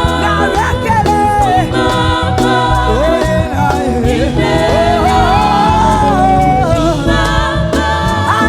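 Gospel singing: voices carrying a gliding melody over a heavy bass line and percussion.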